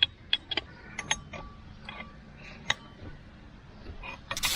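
Hand tools working a mini digger engine's flywheel loose: scattered metallic clicks and light taps, some with a short ringing note, then a brief rattling scrape near the end.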